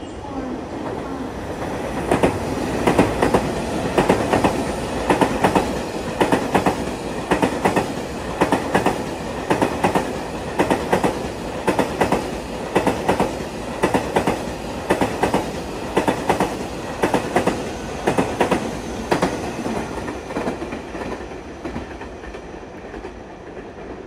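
JR Freight M250 series Super Rail Cargo electric container train passing at speed. Its wheels clack over the rail joints in quick pairs, about one pair a second, after a rumble that builds over the first two seconds, and the sound fades over the last few seconds as the train goes by.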